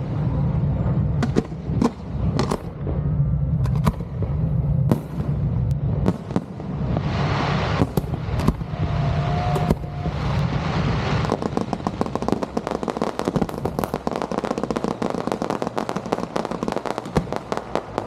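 Fireworks display going off: separate loud bangs of shells bursting, then from about halfway a dense run of rapid crackling.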